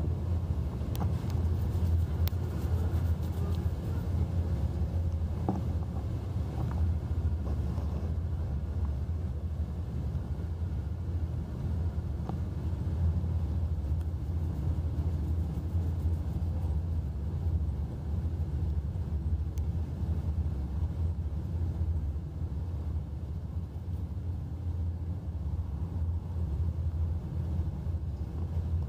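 Steady low rumble on the open deck of a car ferry, its engines droning with wind noise over the microphone.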